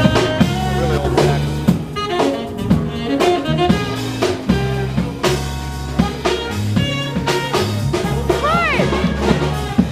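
Live jazz band playing: a saxophone leads over electric bass, drum kit and keyboard. Near the end one saxophone note bends up and back down.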